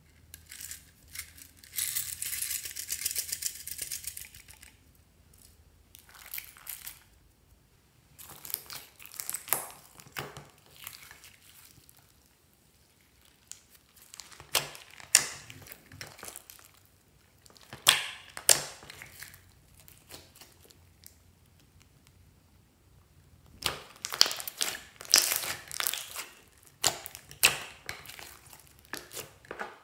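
Hands squishing and kneading glossy slime mixed with foam beads, sprinkles and glitter: bursts of crinkly crackling and sharp little clicks and pops, with quiet pauses between bursts. The longest run of clicks comes near the end, as an air bubble in the slime is pressed and squeezed.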